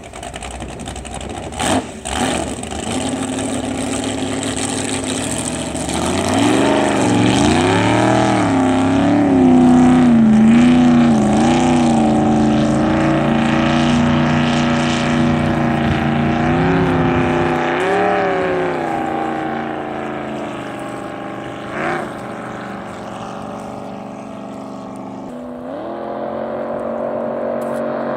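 Chevy big-block V8 of a small boat running under way, with two knocks about two seconds in. The engine revs up about six seconds in, its pitch wavering up and down with the throttle, then eases off and picks up again near the end.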